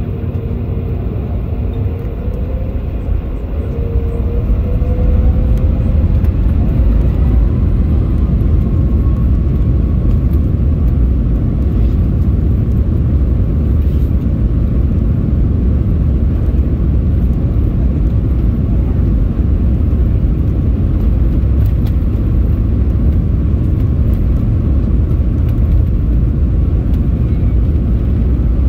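Boeing 737 MAX 9 heard from the cabin on its takeoff roll: the CFM LEAP-1B engines spool up with a rising whine over the first several seconds, then hold takeoff thrust in a steady, loud rumble as the jet accelerates down the runway.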